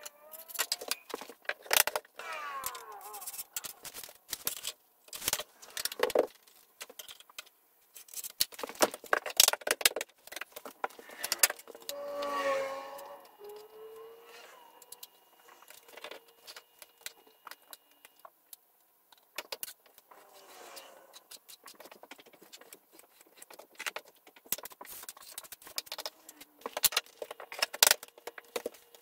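Tools and materials being handled on wooden stairs: scattered clicks, knocks, light clatter and scrapes. Near the end come footsteps on the hardwood stair treads.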